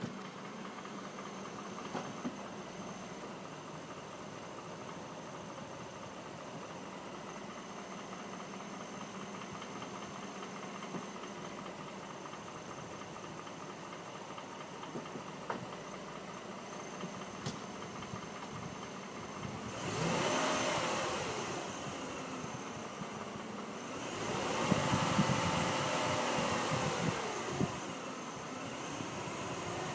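Mercedes-Benz M272 3.0 L V6 idling cold with a knock, then revved briefly twice in the second half, the pitch rising and falling each time. The knock shows when the engine is cold.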